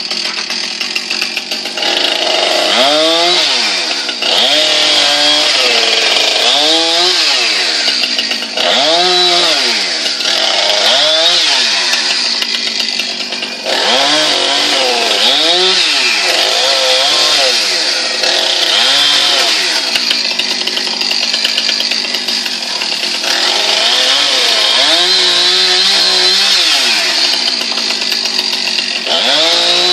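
Two-stroke chainsaw running hard as it cuts through a tree, its engine pitch swinging up and dropping back every second or two as the chain bites into the wood.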